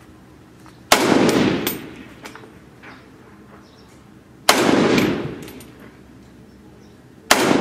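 Three single shots from an AK-pattern assault rifle, about three and a half seconds apart, each followed by a long echo.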